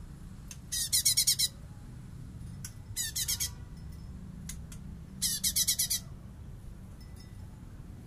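Cungkok (blue-winged leafbird) singing three short bursts of rapid, evenly repeated high notes, about a second in, at about three seconds and at about five seconds. The first and last bursts are the loudest. This is the fast chattering 'bessetan' song that bird keepers prize.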